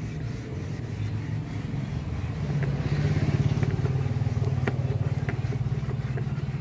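A motor vehicle engine running steadily with a low hum that gets louder about two and a half seconds in, with a few faint clicks.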